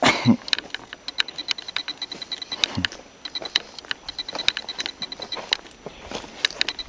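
Footsteps on a hiking trail, irregular crunching and clicking steps, with a high-pitched chirping in rapid pulses behind them.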